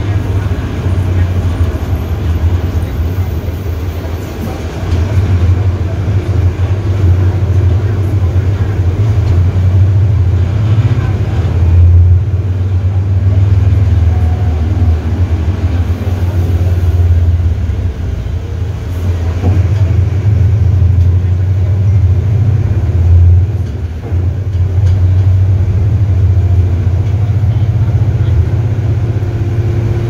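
Mercedes-Benz OM-924 LA four-cylinder inline diesel of an OF-1721L BlueTec 5 city bus, heard from on board while the bus is under way: a deep, steady engine drone that rises and falls with the throttle, dropping briefly a few times.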